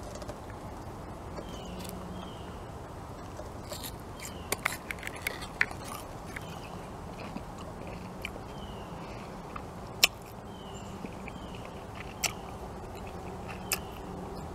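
Raw onion being bitten and chewed close to the microphone, with sharp crunches now and then, clustered a few seconds in and loudest about ten seconds in.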